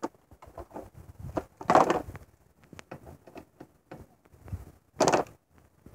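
Hand tools being handled on pavement: scattered light clicks and knocks, with two louder brief scraping knocks, about two seconds in and near the end.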